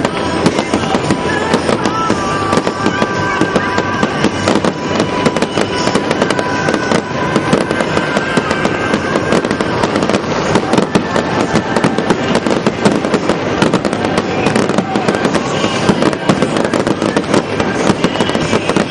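Aerial fireworks display: a dense, unbroken stream of bangs and crackling from bursting shells.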